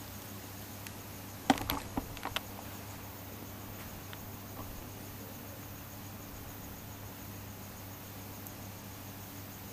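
Crickets chirping faintly and steadily over a constant hiss and low hum. A quick cluster of sharp clicks and knocks comes about a second and a half in.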